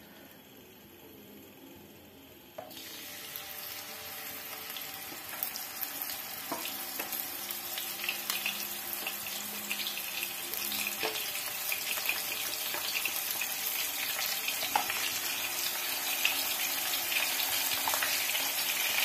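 Masala-coated sardines frying in hot coconut oil. A sudden sizzling hiss starts about three seconds in as the first fish goes into the oil, with crackling pops, and it grows louder as more fish are added.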